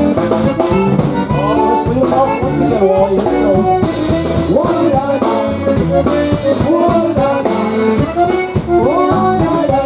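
Live polka band playing an instrumental passage, with accordion and drum kit keeping a steady dance beat.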